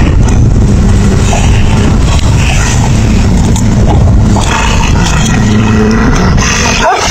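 Wolves growling and snarling over raw meat: a loud, continuous low growl from the pack guarding its food, with a short break near the end.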